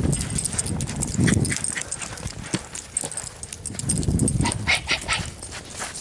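A small dog romping in fresh snow: a busy run of short crunching and crackling sounds, with a few dull thumps.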